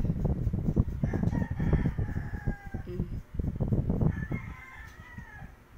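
A rooster crowing, a drawn-out call about a second in and another near the end, over low rumbling and bumping noise.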